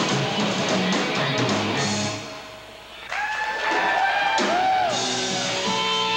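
Live rock band playing electric guitar, bass guitar and drums. About two seconds in the band drops away briefly, then a lead line of sliding, bending notes comes in and the full band picks up again.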